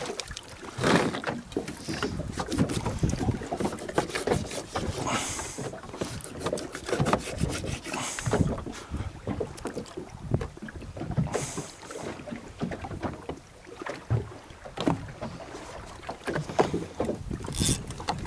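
Wind buffeting the microphone and water slapping against the hull of a small boat on open sea, in irregular gusts and knocks.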